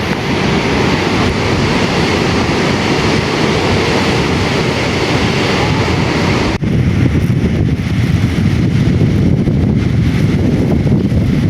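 Strong sea wind buffeting the microphone over the wash of surf on the beach, a loud low rumble with a hiss above it. About two-thirds of the way in the sound changes abruptly: the hiss falls away and the low wind rumble grows.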